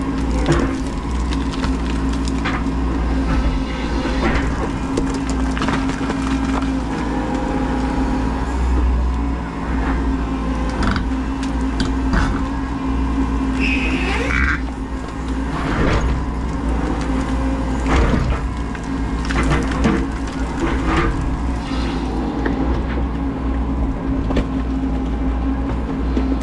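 Menzi Muck M335 walking excavator's engine running steadily with its hydraulics working, heard from inside the cab. Frequent knocks and clatters run through it, and a brief high squeal comes about 14 seconds in.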